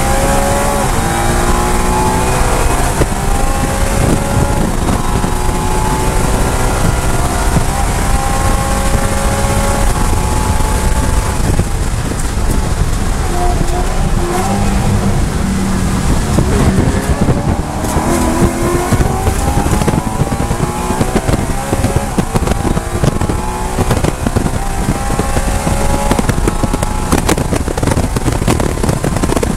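BMW E92 M3's V8 engine at full throttle, heard from inside the car, rising through the revs with an upshift. Near the middle it breaks up as the car brakes and downshifts, then it climbs hard through the revs again in the higher gears.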